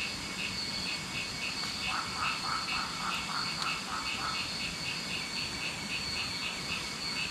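Night chorus of frogs and insects: a steady high insect trill under a call repeated about three times a second. About two seconds in, a lower croaking call joins for about two seconds, pulsing a few times a second.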